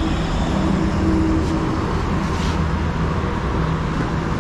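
Steady rumble of highway traffic, with trucks and cars passing, and a couple of faint clicks partway through.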